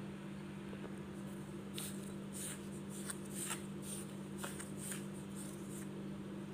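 Spatula stirring dry roasted semolina (rava) with salt in a glass bowl: a run of short, dry scraping and rustling strokes that starts about two seconds in.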